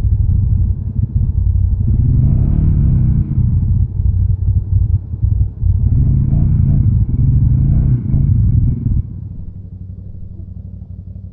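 Polaris Sportsman 570 ATV's single-cylinder engine revving hard in two long bursts, rising and falling as it works through deep mud, over a steady low running rumble. About two thirds of the way through it drops back to a quieter steady run.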